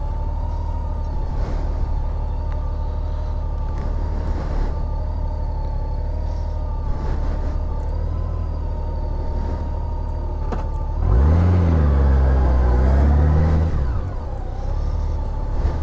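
Honda Gold Wing motorcycle engine idling steadily. About eleven seconds in it picks up louder for around three seconds, its pitch rising and then falling, before settling back to idle.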